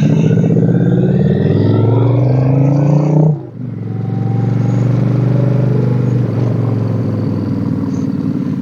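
Motorcycle engine accelerating: its pitch rises for about three seconds, drops at an upshift, then pulls on steadily in the next gear.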